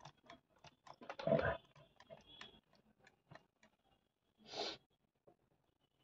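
Faint scattered clicks and small handling noises of a tool and workpiece being positioned, with a brief louder rustle about a second and a half in and a shorter one near the five-second mark. The drill is not running.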